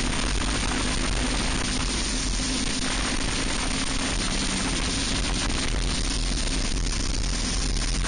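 Racing kart's single-cylinder four-stroke engine (Briggs & Stratton Animal) running at steady high revs at racing speed, under heavy, even wind and road noise on the onboard microphone.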